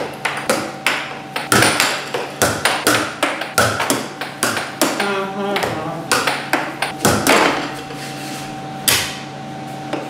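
Air hockey mallet and plastic puck clacking: rapid, irregular sharp hits, several a second, of the puck against the mallet and the table's rails, over the steady hum of the table's air blower. The hits thin out after about seven seconds, with one last strike near nine seconds.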